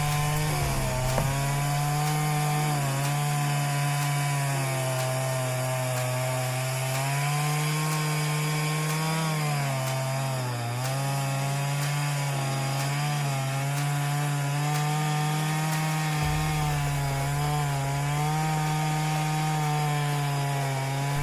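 Neotec 8105 105cc chainsaw with a 42-inch bar cutting through marri wood at high revs, cutting out the remainder of a wedge from the tree. The engine note holds steady, sagging slightly in pitch and recovering now and then as the chain loads up in the cut.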